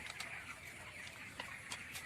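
A flock of young broiler chickens calling all together in a steady chatter, with a few sharp clicks scattered through it.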